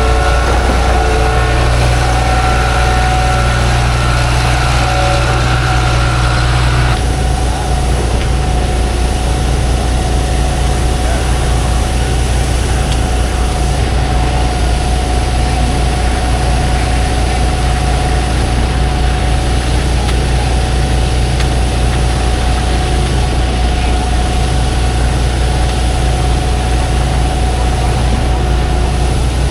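Heavy diesel engine of a concrete pump truck running steadily during the pour, with a higher tone that stops about seven seconds in.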